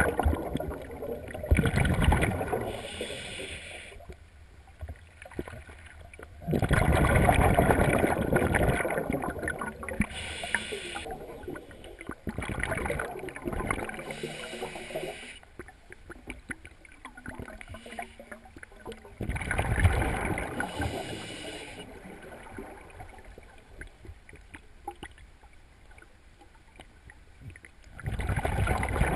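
Scuba diver breathing through a regulator underwater: exhaled bubbles gurgle in loud bursts every several seconds, with a softer hiss of inhaling in between.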